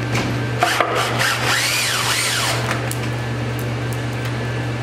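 Cordless drill with a socket backing a stubborn bolt out of the lift strut fitting. Its motor whine rises and falls in pitch for about two seconds, starting just under a second in, then stops.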